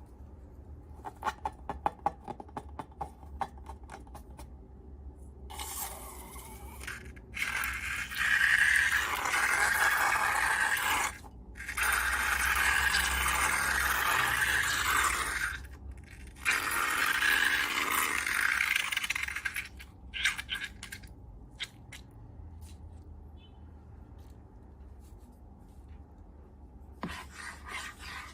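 Close-up scraping and rubbing handling sounds. Scattered small clicks in the first few seconds give way to three loud rubbing stretches of several seconds each, then quieter clicking near the end.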